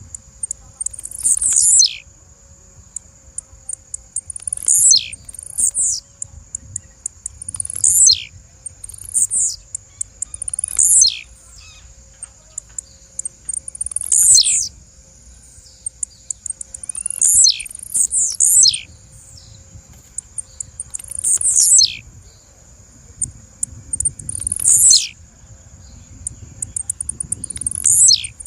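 Blue-black grassquit (tiziu) calling: about a dozen short, high, sharply falling notes, one every one to four seconds, with quick high chips in between.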